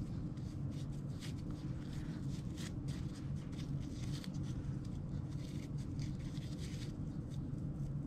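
Gingham fabric ribbon rustling softly in short strokes as hands loop and tie it into a small finger bow, over a steady low hum.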